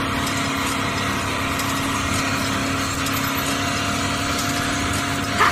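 Mini tractor running steadily, an even engine-like drone with a low hum, as it pulls a cultivator through soil.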